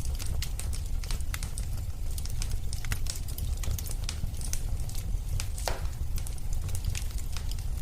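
Wood fire burning in a fireplace: a steady low rumble of flames with irregular crackles and pops, one fuller pop just before six seconds in.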